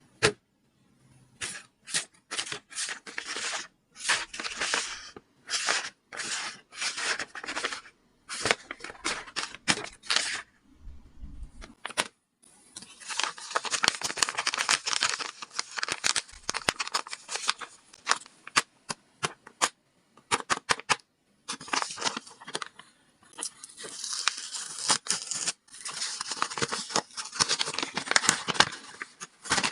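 Paper being handled close up: a run of short rustling, tearing strokes, then after a brief pause about twelve seconds in, a longer stretch of dense crinkling and rustling.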